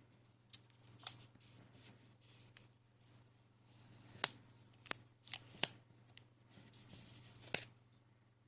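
Faint handling sounds: soft rustling and scattered sharp clicks, a cluster of them between about four and six seconds in and one more near the end, as a dust-absorber sticker is dabbed on and lifted off a GoPro Hero 9's front screen. A faint low hum runs underneath.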